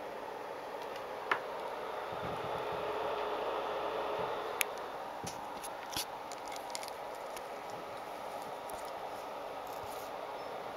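Steady low hiss with a few sharp clicks and small ticks. The loudest click comes about a second in, two more come near the middle, and lighter ticks are scattered after them, typical of a handheld camera being moved.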